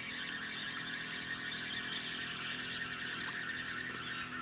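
A dense outdoor chorus of small animal calls: many quick, high chirps repeating over a steady high hiss.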